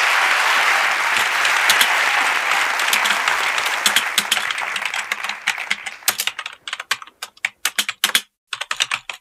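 Audience applause that fades out over the first five seconds or so, while typing on a slim computer keyboard takes over: quick runs of key clicks with a short pause near the end.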